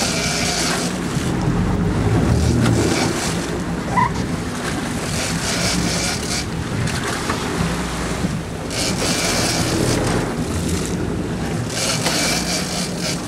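Charter fishing boat's engine running steadily at sea, with wind buffeting the microphone and water rushing past in swells of hiss every few seconds. A short high ping about four seconds in.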